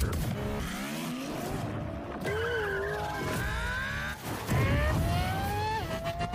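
A car accelerating hard, its engine pitch climbing and dropping at the gear changes, with tyre squeals in the middle.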